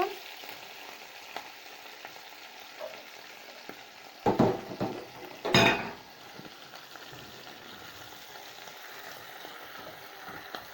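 Meat frying in ghee in a hot pot, sizzling steadily. Two louder bursts of sizzle and stirring come about four and five and a half seconds in, as the diced onion goes into the hot fat.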